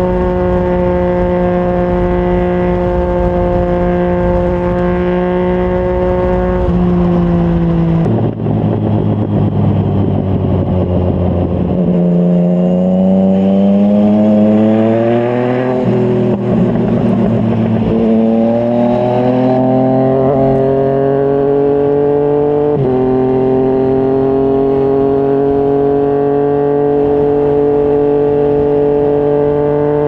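Yamaha MT-09's inline three-cylinder engine through a Yoshimura R55 slip-on exhaust, heard from the rider's seat. It holds a steady high note at speed, drops sharply in pitch around seven to eight seconds in as the bike slows, rises and falls through gear changes in the middle, and climbs to a steady note again near the end.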